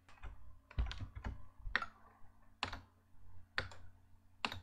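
Computer keyboard and mouse clicks: a dozen or so sharp, irregularly spaced clicks.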